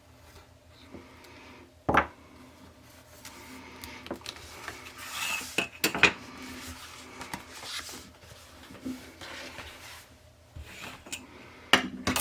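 A craft blade scraping and cutting through stacked paper pages along a metal edge, mixed with clicks and knocks of metal tools being handled. There is a sharp knock about two seconds in.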